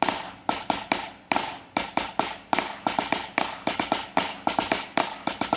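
Snare drum played with wooden sticks: a repeating rudiment of quick grouped strokes, a five-stroke roll with the last double delayed, which comes out as the flam drag.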